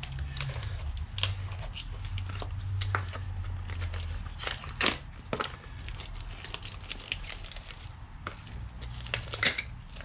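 A pack of motorcycle brake pads being opened by hand: irregular crinkling and tearing of the packaging with small clicks and rustles throughout.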